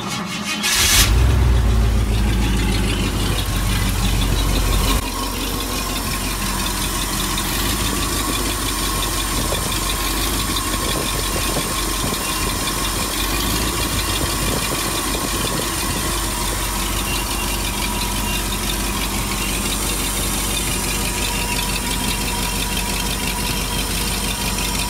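A 1974 Ford F350's FE 390 V8 catches about a second in, runs louder for the first few seconds, then settles at about five seconds into a steady idle. The owner wonders whether a sound in the idle is an exhaust leak or a vacuum leak.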